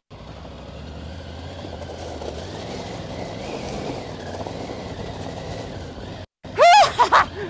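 Triumph Tiger 900 Rally Pro's three-cylinder engine running as the bike rides through deep loose gravel, the tyres crunching over the stones, growing louder toward the middle. The sound cuts out for a moment near the end, then a brief, loud, high voice call.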